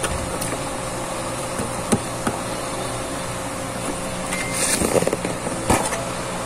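Steady mechanical hum in the background, with a few light clicks and a short rustle of handling about five seconds in.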